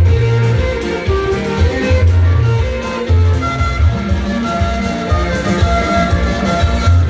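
Live worship band playing an instrumental passage: a heavy, rhythmic bass line under held melody notes, with plucked guitar and bowed-string-like sounds.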